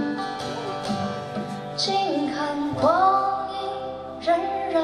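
Live acoustic band music: strummed acoustic guitars backing a female singer, whose voice slides up into a held note about three seconds in.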